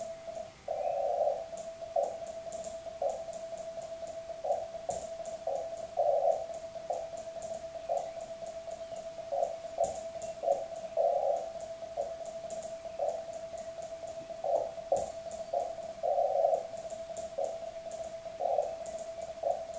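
Morse code sidetone of a CW transmitter, a single tone of about 650 Hz keyed into dots and dashes as a CQ call is sent by hand on the PS213 Morse key, with small clicks from the key's contacts on each element. A faint steady tone at the same pitch sits underneath.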